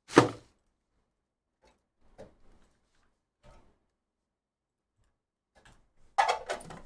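A hard plastic card case knocks down on a padded mat once at the start. A few faint taps of cards being handled follow. About six seconds in, the clear plastic case is pulled apart with a quick run of plastic clicks and scrapes.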